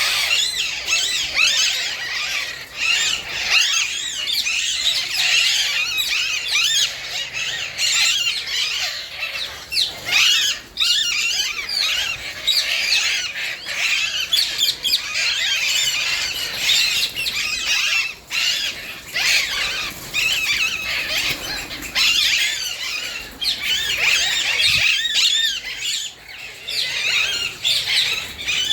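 A large mixed aviary colony of lovebirds and budgies calling all at once: a dense, continuous chatter of high squeaky chirps and shrill screeches.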